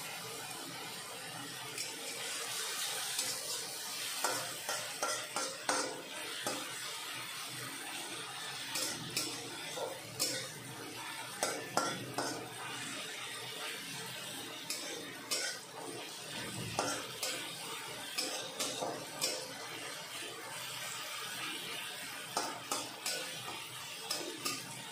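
Metal spatula scraping and clinking irregularly against an aluminium kadai as onions and ginger-garlic paste are stirred, over a steady sizzle of frying.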